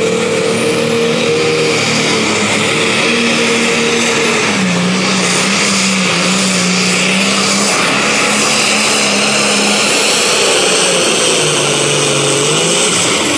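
International Harvester 1066 super stock pulling tractor's turbocharged diesel running flat out under load while dragging the pulling sled, with a high whine over the engine note. The engine pitch drops about four and a half seconds in, then sags again near the end before picking back up.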